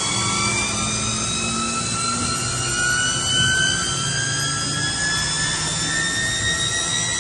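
Mazak PFH-5800 horizontal machining center spindle running up: a whine of several tones climbing slowly and steadily in pitch over a steady low hum.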